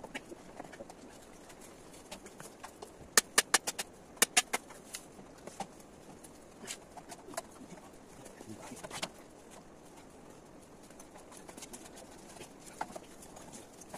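Hammer knocking on a bamboo railing: two quick runs of sharp knocks, five and then three, about a second apart, with scattered lighter knocks around them.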